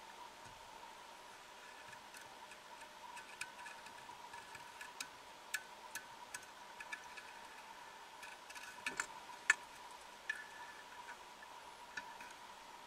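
Faint steady hum with irregular sharp clicks and short ringing ticks, heard underwater on a dive camera's sound track; the loudest click comes about nine and a half seconds in.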